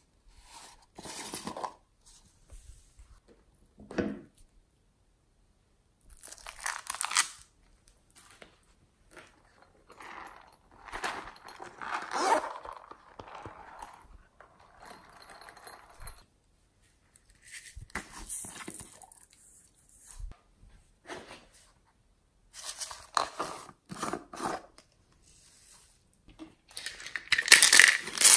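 Plastic slime tubs and containers being handled and opened, and foam-bead slime pressed onto a tray of slime, giving crackling, crunching noises in separate bursts with short pauses between; the loudest burst comes near the end.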